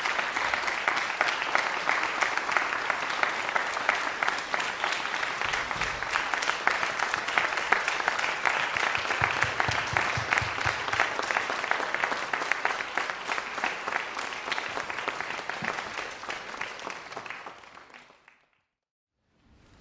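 Congregation applauding, a long stretch of dense steady clapping that dies away near the end.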